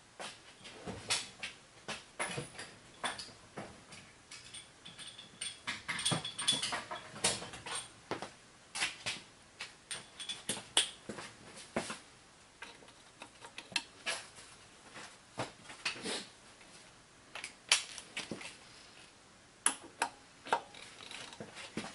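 Irregular clicks and knocks of hand tools on the engine as the crankshaft is turned over by hand, bringing number one cylinder up toward top dead centre on compression.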